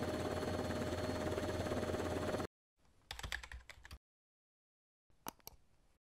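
A steady droning noise with a constant hum cuts off abruptly about two and a half seconds in. Then come short clusters of sharp clicks, about two seconds apart: the mouse-click sound effect of an animated cursor pressing a subscribe button.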